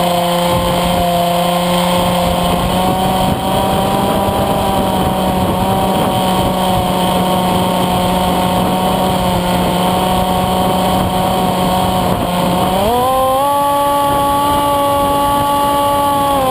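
Windrider Bee2 RC flying wing's electric motor and propeller running with a steady whine in flight. About thirteen seconds in, the pitch steps up as the throttle is opened, and it holds there.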